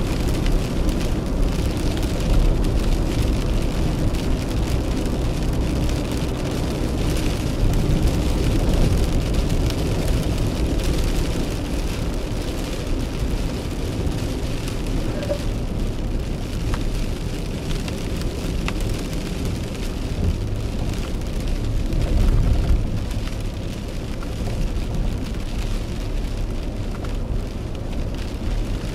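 Rain falling on a car's windshield and roof, heard from inside the cabin, over the steady low rumble of the car driving on a wet road.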